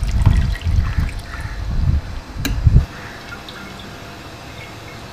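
Water streaming and dripping back into a steel pot as handfuls of boiled spinach are lifted out to drain, with a sharp click about two and a half seconds in. The splashing stops at about three seconds.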